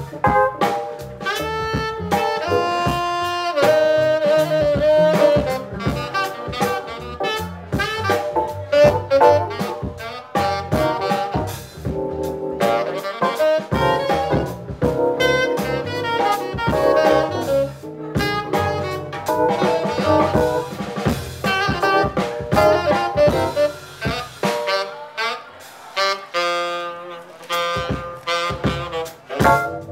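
Live jazz quartet playing: a saxophone leads with melodic runs over upright double bass, drum kit and keyboard.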